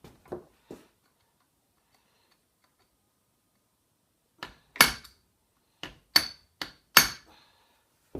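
Hammer strikes on a metal lathe apron as it is knocked apart: a few light clicks, a pause, then about six sharp, uneven blows over some three seconds.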